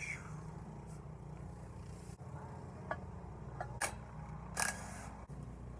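A steady low hum with a few short sharp clicks about three to five seconds in.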